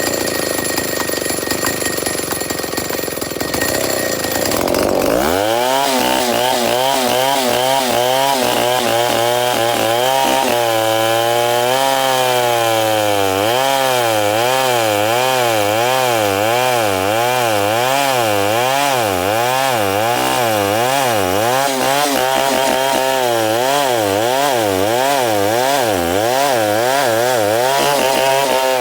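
Chainsaw cutting through timber. About five seconds in, its engine revs up sharply, and its pitch then rises and falls repeatedly, about one and a half times a second, as the chain works through the wood.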